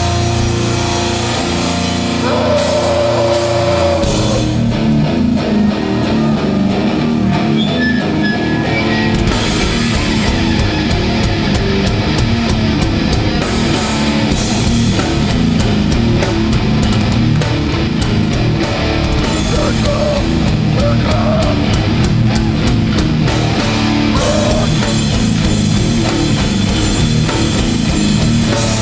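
Hardcore band playing live: loud distorted guitars and bass holding chords for the first few seconds, then the drums come in about four seconds in with a fast, driving beat under the guitars.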